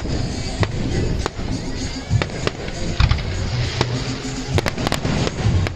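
Fireworks going off in irregular sharp bangs, with several cracks in quick succession near the end, over music with a heavy bass beat.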